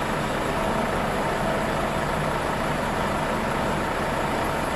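Heavy diesel engine running steadily at idle, a constant low rumble with no change in speed.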